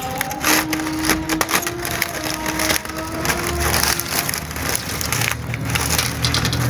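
Continuous crackling and rustling of newspaper wrapping and wire mesh as a newspaper-wrapped roll of hexagonal chicken-wire mesh is handled and its twine and paper cut with shears.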